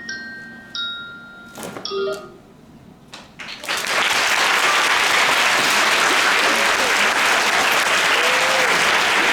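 The last few ringing notes of mallet percussion, then a few scattered claps, then an audience breaking into steady, loud applause about three and a half seconds in.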